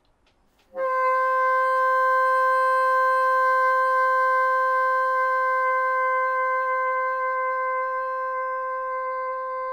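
Bassoon holding one long, steady tone in its upper register, starting about a second in and slowly getting softer. The pitch goes flat as the note is held, which the player puts down to a lack of core and diaphragm strength to support it.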